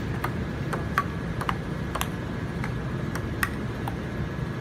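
Table tennis rally: a celluloid-style ping-pong ball clicking off paddles and an outdoor Stiga table, about two light, sharp hits a second.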